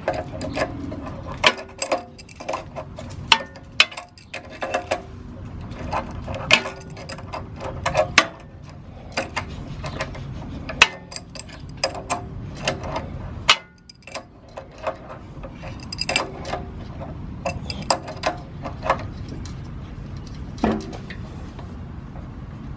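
An adjustable wrench clinking against a brass fitting on a pressure washer pump as it is repeatedly repositioned and turned to tighten the fitting. The clicks are sharp and metallic and come in irregular clusters.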